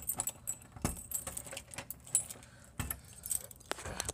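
A bunch of keys jangling, with scattered sharp clicks as a key is worked in a door lock to lock it.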